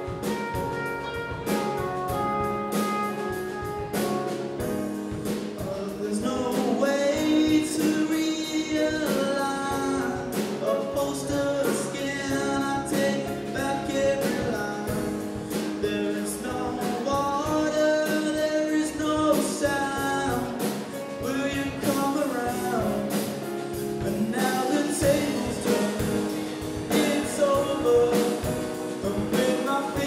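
Live band playing a song: a lead singer over electric guitar, piano and drum kit, with a steady beat.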